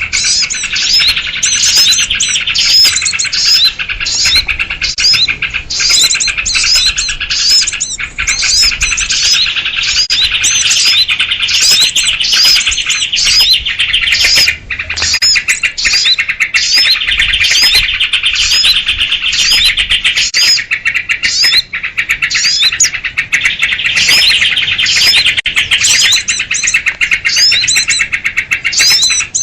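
A dense, continuous chorus of sooty-headed bulbuls (kutilang) chattering in agitation, with sharp repeated calls about two to three times a second over a steady thick twittering: a bird-trapping lure recording of alarmed, noisy birds, meant to draw small birds in.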